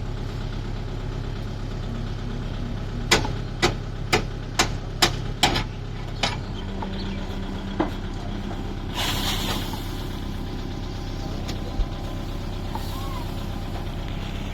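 Diesel engine of a farm machine running steadily, its pitch shifting slightly about seven seconds in. About three seconds in comes a run of about seven sharp metallic knocks, roughly two a second, and a brief hiss follows near the middle.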